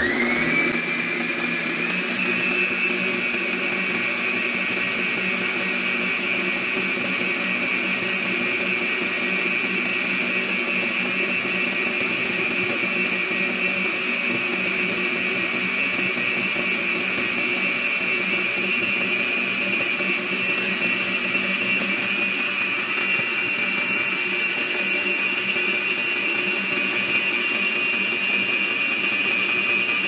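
Britânia BBP515 500-watt planetary stand mixer running under load, its flat beater kneading soft panettone dough in the glass bowl. The motor's high whine climbs in pitch over the first couple of seconds as it comes up to speed, then runs steadily.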